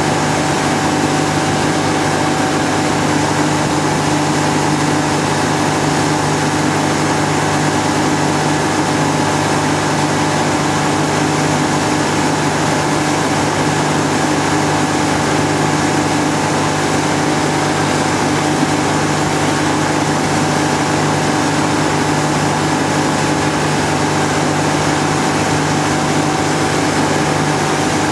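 Tow boat's engine running steadily at speed, a constant drone with the rush of water over it.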